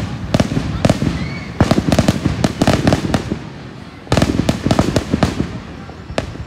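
Fireworks display: aerial shells bursting in a dense run of bangs and crackles, with heavier volleys starting about a second and a half in and again about four seconds in.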